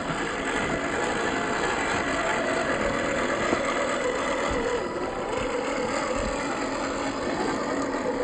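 1/12-scale MN-86KS Benz G500 RC car driving off-road: its electric motor and gears whine steadily, the pitch wavering a little with the throttle, over a continuous rough noise of the running gear.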